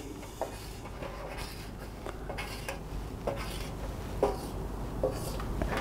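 Marker pen drawing on a bare aluminium panel: faint scratching strokes with a few light ticks.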